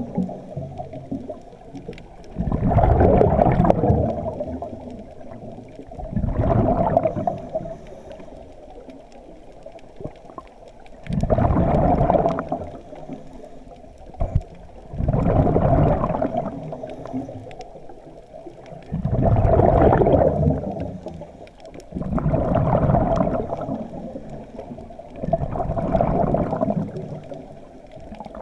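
Scuba diver's exhaled bubbles gurgling out of the regulator, heard underwater: a burst of about a second and a half roughly every three to four seconds, in time with the diver's breathing.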